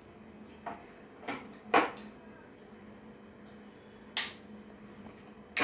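A few knocks and clunks as a mixer-grinder jar is handled and set on its base, then a sharp click of the wall switch about four seconds in; the grinder's motor comes on loudly right at the end.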